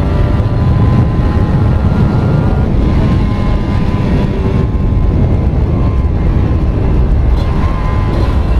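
Kawasaki Ninja RR's 150 cc two-stroke single-cylinder engine running on a Mikuni VM28 carburettor, holding a fairly steady pitch over a heavy low rumble.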